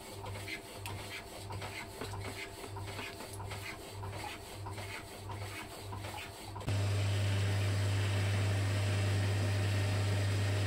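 A power saw running in the background with a steady rhythm of strokes, a little over two a second, while a metal lathe turns a motor shaft. About two-thirds of the way in this cuts off abruptly and gives way to a steady, louder low hum of the lathe spinning the motor's rotor.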